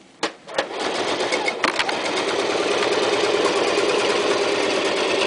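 Toyota Super Jeans J34 household sewing machine running at speed, stitching through a stack of about eight layers of leather. It starts about a second in after a click, picks up speed, then runs with a steady, fast clatter.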